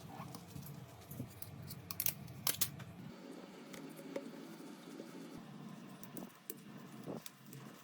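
Small metal or plastic tools clicking and tapping against a smartphone while it is being repaired. Scattered sharp clicks, with a quick cluster of louder clicks about two seconds in.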